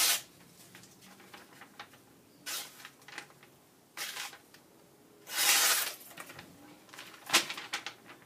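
Thin, flimsy paper rustling and being sliced by a freshly sharpened tomahawk blade in push cuts: about five short crisp rustles, the longest a little past halfway.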